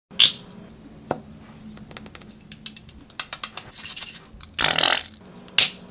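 Close-up handling of small plastic glitter containers over a glass bowl of slime: a run of small clicks and taps, with a few short hissing swishes, the loudest just before five seconds in, and a faint steady low hum underneath.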